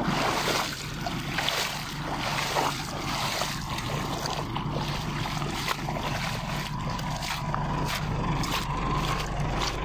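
Shallow river water rushing and splashing over stones, with a steady low rumble underneath.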